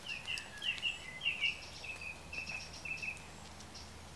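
A songbird singing a quick run of short chirping notes, which stop about three seconds in, over a faint steady low hum.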